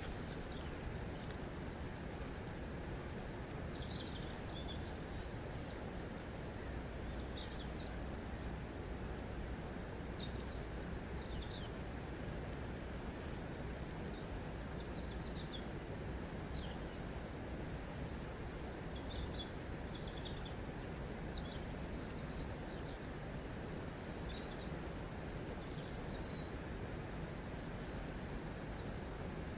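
Steady rush of running water with many small birds chirping, short high calls scattered throughout.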